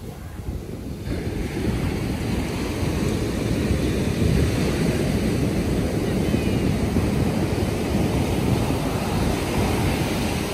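Surf breaking and washing up on a sandy beach, a steady rushing noise that swells about a second in, with wind rumbling on the microphone.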